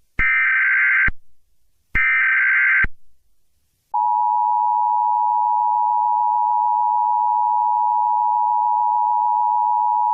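Emergency Alert System SAME header: two bursts of rapid digital data warble, about a second each and about a second apart. About four seconds in, the steady single-pitch NOAA Weather Radio 1050 Hz alert tone begins and holds, signalling that a warning message is about to follow.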